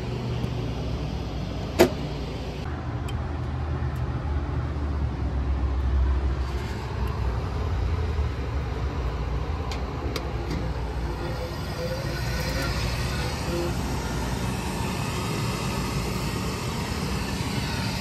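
Rooftop gas package unit starting up on a call for heat. A sharp click comes about two seconds in as the power is switched on. A steady motor hum follows, and a broader whirring joins it from about twelve seconds in as the unit's motors come up.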